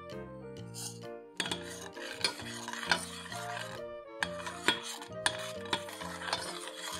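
A metal spoon stirring milk in a stainless steel pot, scraping around the pot with sharp clinks against its side. The stirring starts about a second and a half in, pauses briefly midway, and runs on over background music.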